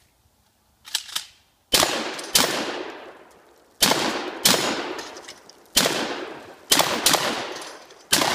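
Shotgun firing about eight shots at steel targets, most of them in quick pairs, each shot followed by a long echo that dies away among the trees.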